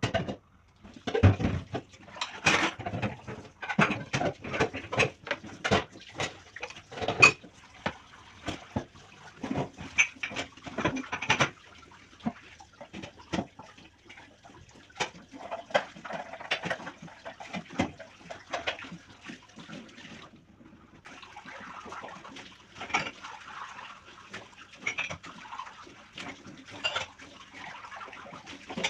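Dishes and utensils clattering and knocking against each other as they are washed by hand, in many quick irregular knocks. About two-thirds of the way through, a tap runs steadily while the knocking goes on more lightly.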